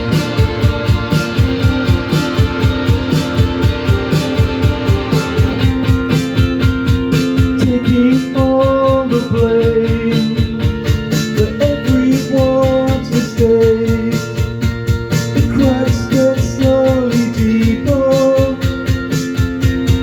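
Live rock band playing an instrumental passage: guitars over a steady drum beat, with a melodic lead line coming in about eight seconds in.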